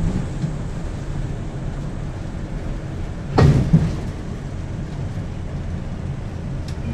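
City bus heard from inside the cabin: a steady low rumble of engine and road noise as it slows toward a stop, with one loud clunk about three and a half seconds in.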